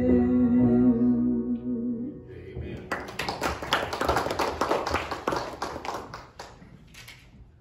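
The closing chord of a gospel song and its accompaniment rings out and fades over about two seconds, then a few people clap for about three and a half seconds.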